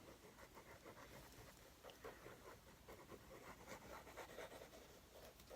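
Faint rustling and light tapping of paper being handled and pressed down, a scatter of small soft ticks.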